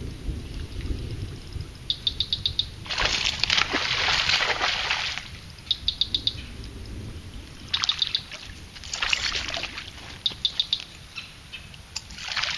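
Water splashing in several loud bursts as a hooked largemouth bass thrashes at the surface, with short runs of rapid high clicking in between.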